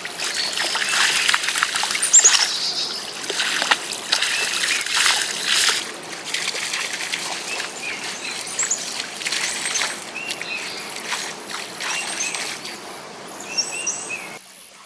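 Stream water trickling, with splashing and sloshing in the first few seconds. Birds chirp repeatedly in the second half.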